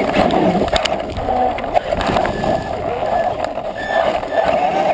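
A Traxxas E-Revo Brushless RC truck driving over grass, heard through a GoPro mounted on the truck itself. The running noise is steady and muffled, with a few brief whines from the electric drive in the middle.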